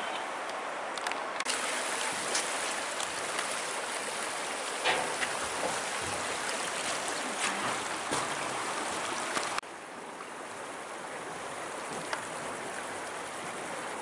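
Rushing water of a mountain stream, a steady even rush. It drops suddenly to a quieter level a little under ten seconds in.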